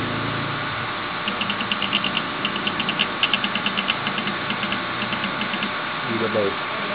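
Teneth cutting plotter's motors stepping the sheet and carriage while its red-dot laser eye locates the registration mark for a contour cut. It makes a rapid run of mechanical clicks for about four seconds over a steady hum, with a short rising-and-falling whine near the end.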